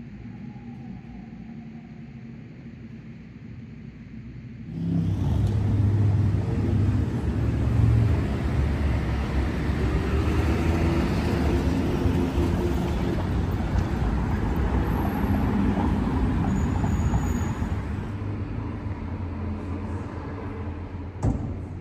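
Quiet indoor room tone with a low hum, then about five seconds in a sudden switch to loud, steady city street traffic: the rumble of passing cars and engines.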